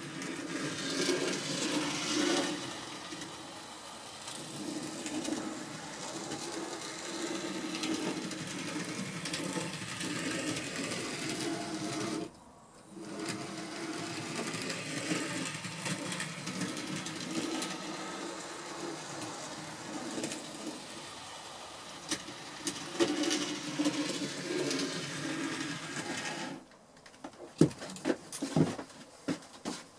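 OO9 narrow-gauge model locomotive running around the track with its train: a steady small electric-motor whirr and wheel rumble that cuts out briefly about twelve seconds in and stops near the end, followed by a few sharp knocks.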